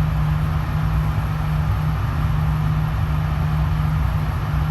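Steady low mechanical rumble with a constant low hum, unchanging throughout.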